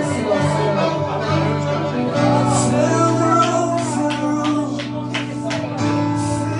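Live worship music: slow, held chords with a voice singing over them, and a few light percussive hits in the second half.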